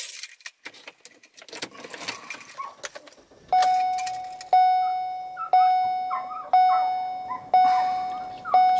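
Clicks and rustling, then a car's in-cabin warning chime starts about three and a half seconds in: one clear tone struck about once a second, six times, each strike ringing off.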